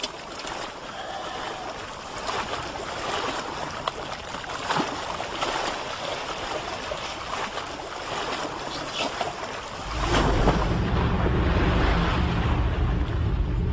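Choppy sea water sloshing and splashing, with scattered short splashes; about ten seconds in, a louder steady low rumble takes over.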